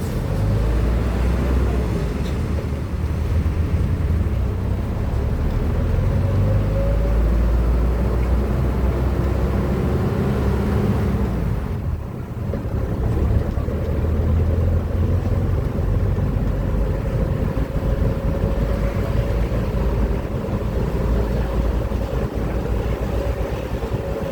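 Steady street traffic noise with a heavy low rumble and a faint engine drone, dipping briefly about halfway through.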